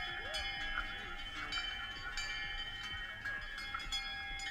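Cowbells on a herd of cattle walking past, many bells ringing and clanging at once, each struck over and over at irregular moments.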